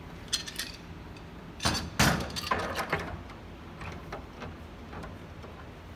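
A metal clamp being handled and set onto a wooden panel: a few light clicks, then a cluster of metallic clanks and knocks about two seconds in, and a few softer clicks after.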